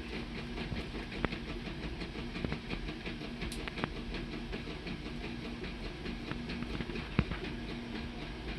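3D printer running: a steady mechanical hum and rattle with irregular sharp clicks, the loudest about seven seconds in.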